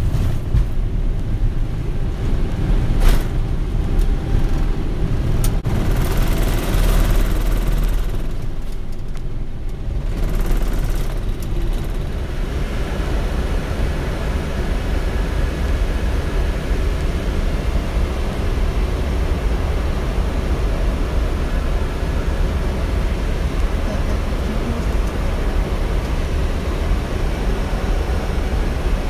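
Boeing 777 freighter flight deck during the takeoff, engines at takeoff thrust: a loud, heavy low rumble with a sharp knock about three seconds in, easing about twelve seconds in to a smoother, steady rush of engine and air noise.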